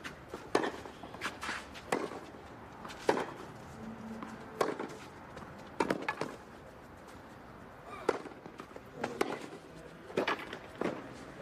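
A tennis rally on a clay court: sharp racket strikes on the ball and the ball's bounces, about a dozen in all, roughly one every second, with a pause of about two seconds past the middle.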